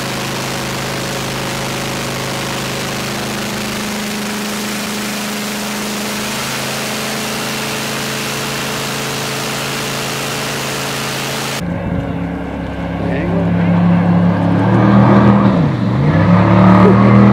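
Jet-drive fireboat's engine running steadily under way over the rushing of its churning wake. Near the end, after a cut, the boat runs past and gets louder, its engine pitch dropping and then rising again as the throttle changes.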